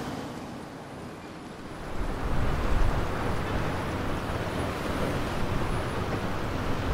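Outdoor city ambience: a steady hum of distant road traffic with a low rumble, growing louder about two seconds in.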